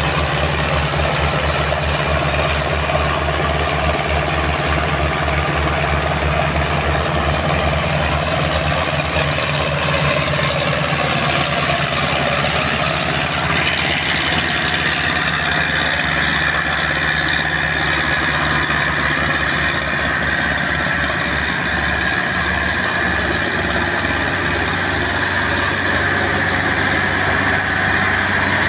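Sonalika DI 750 III tractor's diesel engine running steadily while the tractor sits deep in wet mud. About halfway through the sound changes, and a steady higher whine rides above the engine.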